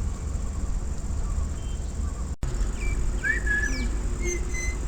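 A parrot gives a few short whistled chirps and quick rising and falling squeaks in the second half, over a steady low background rumble. The sound cuts out for an instant about halfway.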